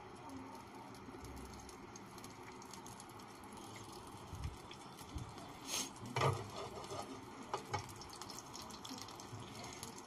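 Oil heating in a non-stick frying pan on a gas stove: a faint, even sizzle with a few brief clicks and knocks around the middle.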